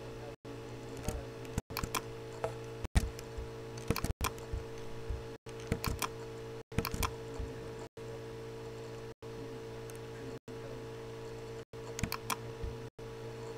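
Scattered sharp clicks from working a computer, in small clusters a few times, over a steady low hum. The sound drops out briefly about every second and a quarter.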